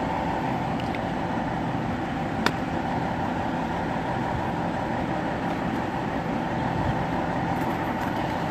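A motor vehicle engine idling steadily nearby: a constant hum with a steady whine over it. One light tap about two and a half seconds in.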